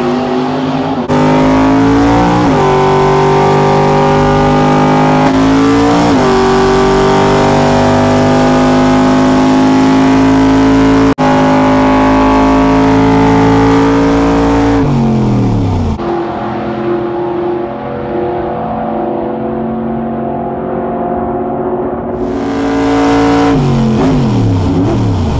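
Custom 1966 Chevelle drag car's engine on a full-throttle drag-strip pass. The pitch climbs and drops back twice in the first six seconds as it shifts up, then holds high and steady. After about fifteen seconds the throttle comes off and the revs fall; the engine runs lower and less evenly, rises briefly near the end, then falls again.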